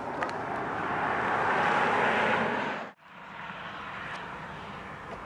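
Diesel locomotives of a coal train approaching on the rails, a steady rumble and rail noise that grows louder for about two seconds, then cuts off suddenly. A quieter steady background with a few faint clicks follows, with the train far away.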